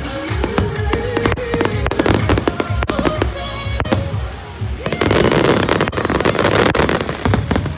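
Aerial fireworks bursting in rapid, overlapping bangs over background music. About five seconds in the bangs merge into a dense, loud rush of noise for a couple of seconds, then ease off.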